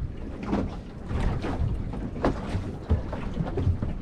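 Water lapping and slapping against the hull of a small boat at rest, with wind on the microphone and a few light, irregular knocks.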